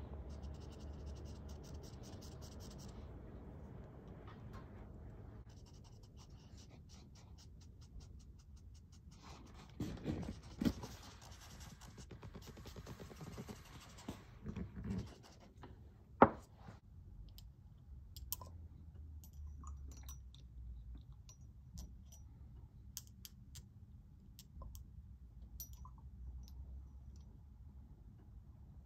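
Cotton swab rubbing ink onto cotton paper: soft scratching in stretches through the first half, with a few dull knocks. A single sharp click about halfway through is the loudest sound, followed by scattered light clicks and ticks.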